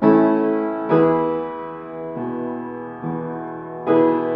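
Piano playing slow chords, a new chord struck roughly every second and left to ring and fade, with no singing.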